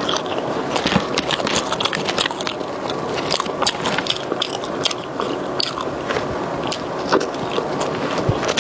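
Close-miked chewing of French fries, a steady run of wet mouth clicks and smacks.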